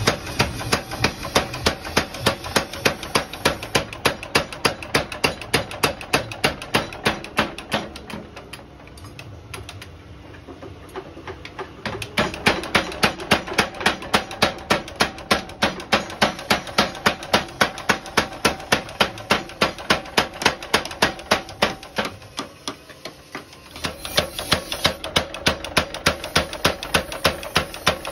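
45 kg Hercules mechanical power hammer pounding a red-hot steel cultivator shovel blade in a rapid, even rhythm of blows. It eases off briefly about eight seconds in and again shortly before the end, then resumes.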